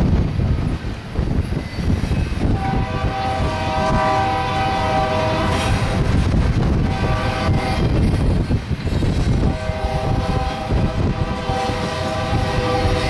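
Diesel freight locomotive air horn sounding a chord of several tones: a long blast, a short one, then another long one, the pattern of a grade-crossing warning. Under it, the steady rumble and clatter of double-stack container cars rolling past.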